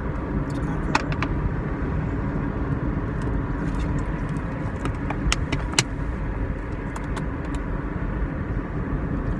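Steady low rumble of road and engine noise inside a moving car's cabin, with a few sharp clicks and taps about a second in and again around five to six seconds in.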